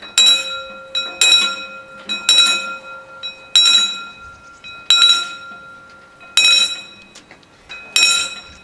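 Level crossing warning bells start ringing as the crossing activates for an approaching train. A loud ringing strike comes about every second and a quarter, each ringing on, with a lighter tap just before it.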